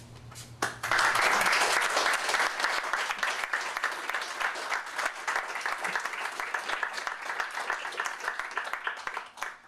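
A group of karate students and instructors applauding. A couple of lone claps come first, then steady, dense applause starts about a second in and stops near the end.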